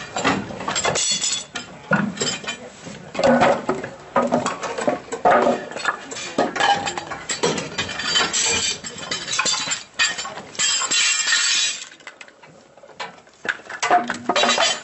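Irregular clinks and knocks of tools against wooden blocks and metal as the timber supports under a boat hull are worked loose, some strikes ringing briefly; a quieter spell comes about twelve seconds in.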